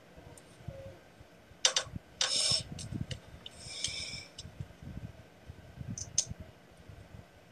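Small plastic clicks and a short scrape from a lip gloss tube being handled and opened, with the applicator wand drawn out.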